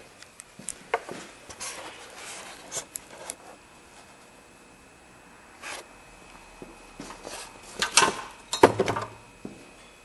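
Handling noises: scattered clicks, taps and rubbing of things being moved about, with the loudest cluster near the end.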